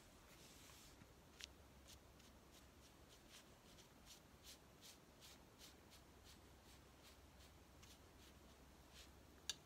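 Faint, repeated soft strokes of a Chinese painting brush pressed and dragged on its side across paper, a few strokes a second, with a couple of sharper taps, one about a second in and the loudest near the end.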